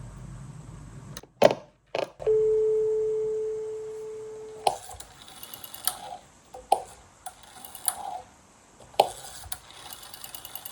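1960s Austrian rotary dial loudspeaking telephone going off-hook with a few clicks, then a steady dial tone from its loudspeaker for about two seconds that stops when dialling begins. The rotary dial is then wound and released for several digits, each return giving a quick even run of pulse clicks.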